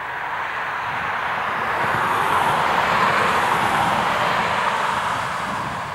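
Embraer ERJ 170's twin turbofan engines at takeoff power during the takeoff roll: a steady rushing jet noise with a low rumble, swelling to its loudest about halfway through and then easing slightly.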